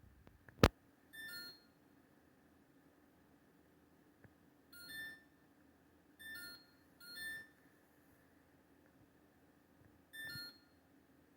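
LG LFX25960ST French-door refrigerator's control panel beeping on its own: five short beeps, each of several tones together, at uneven intervals, the sign of a control-panel fault that also sets its LED lights flashing. A sharp click comes just before the first beep, over a low steady hum.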